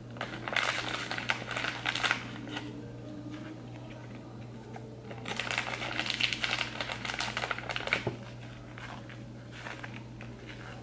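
Slime loaded with crunchy add-ins being squeezed and pressed, making crackling, clicking sounds in two stretches of a couple of seconds each.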